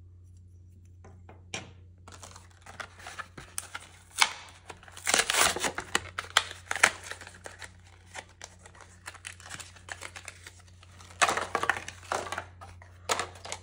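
Packaging crinkling and tearing in irregular bursts as a figure is unwrapped by hand, loudest about five seconds in and again near the end, over a steady low hum.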